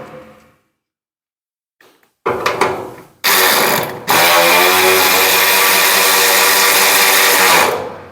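VTEK V116-1 16.8V cordless ratchet spinning under power in several bursts: two short runs a couple of seconds in, then a longer steady run from about four seconds until near the end.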